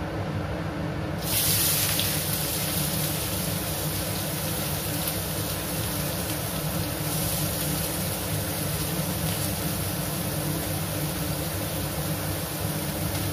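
Chopped onion hitting hot mustard oil in a steel kadhai: a sizzle starts suddenly about a second in and keeps going steadily as the onion fries.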